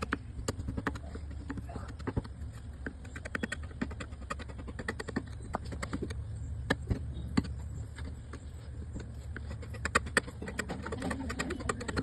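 Hand wood carving: carving tools striking and cutting into wood, giving rapid, irregular sharp taps and clicks, several a second, over a steady low hum.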